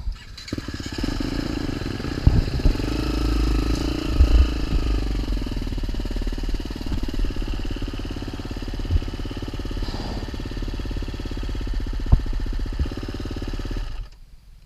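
Off-road motorcycle engine running steadily, with a few sharp knocks along the way. It starts about half a second in and cuts off suddenly near the end.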